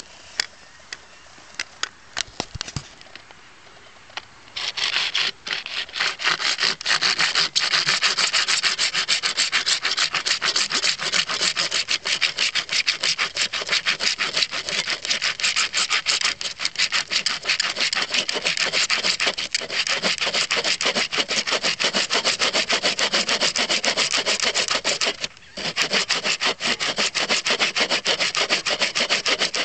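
Rusty handsaw sawing through a hard plastic trading-card case on a wooden board, in fast back-and-forth scraping strokes. A few light clicks come first, the sawing starts about four seconds in, and it stops briefly once near the end before going on.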